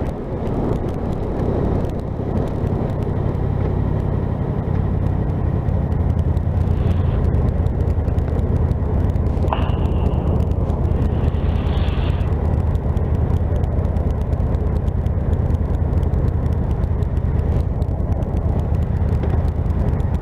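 Motorcycle engine running steadily at low speed and idling, with a constant low hum and road noise, heard from a helmet-mounted camera.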